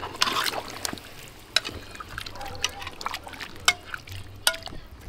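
A pot of stew bubbling and sloshing, with irregular liquid pops and small clicks.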